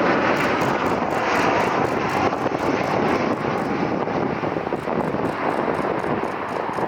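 Airliner engines heard as a steady, noisy rush, with wind on the microphone.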